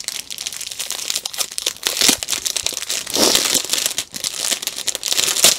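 Crinkling and rustling of small plastic bags of diamond-painting drills being handled, a dense run of small crackles with a louder crinkle about three seconds in.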